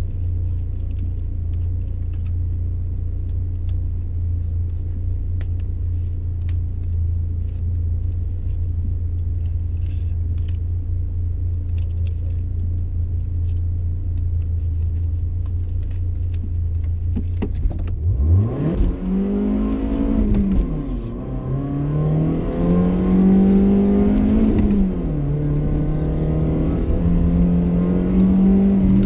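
BMW engine idling with a steady low drone inside the cabin. After about 18 seconds the car launches hard: the revs climb, drop at two upshifts and climb again under full acceleration.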